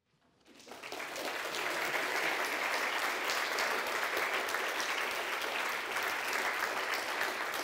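An audience applauding: many hands clapping together in a dense, steady patter that swells up during the first second.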